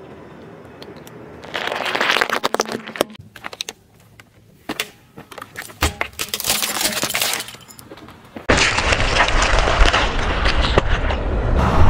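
A car tyre crushing things: bursts of cracking and crunching, with a dense crackle as a plastic toy car breaks under the wheel. About two-thirds in, a louder steady rumble of the rolling car comes in, with crunching as a pineapple is squashed.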